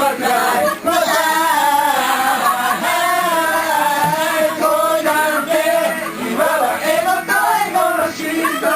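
Singing by male and female voices together, with music, running without a break.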